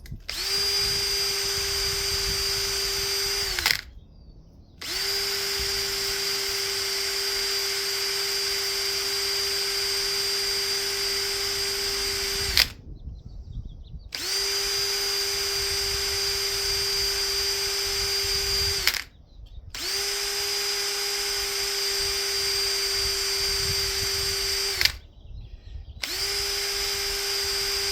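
Power drill spinning a wire brush against a rusty starter part, scrubbing off loose rust scale. It runs at a steady speed in five bursts with short pauses between them.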